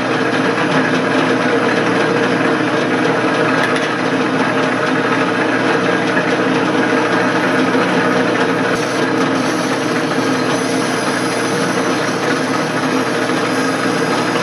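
Atlas/Craftsman metal lathe running steadily in back gear with a constant gear hum, its tool turning down aluminium bar stock.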